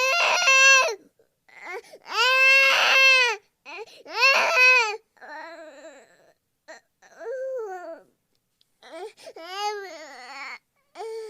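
Baby-like crying sound effect: a series of wailing cries, each about a second long and arching up then down in pitch. The first three are loud, and the later ones are softer and waver.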